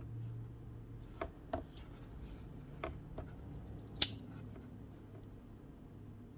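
A vintage Pal Cutlery Co. cattle knife being handled: a few light metallic clicks, then one sharp, louder click about four seconds in.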